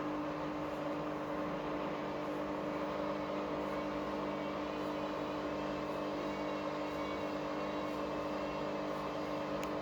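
Washing machine on its spin cycle: the drum spins at a steady speed with a constant motor hum and whine over a rushing noise.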